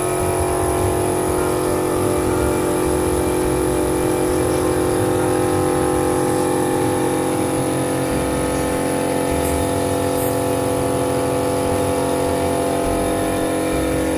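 An engine running steadily at an unchanging speed, a continuous loud drone that does not rise or fall.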